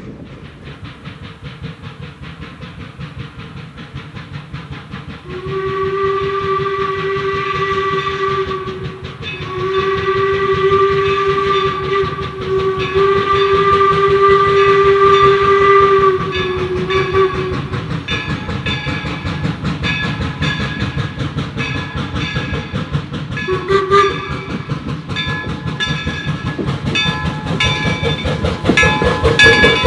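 Steam locomotive No. 17 'York', a replica 4-4-0 American-type, chuffs steadily as it runs by. Its steam whistle sounds three long blasts about five seconds in, then a short toot later on.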